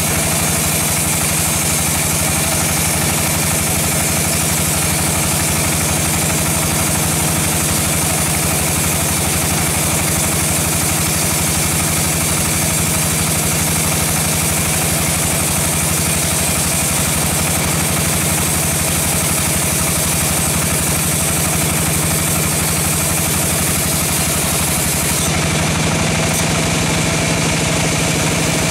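Large band sawmill running steadily as its blade cuts lengthwise through a teak log, a steady machine drone with the hiss of the cut; the tone shifts slightly near the end.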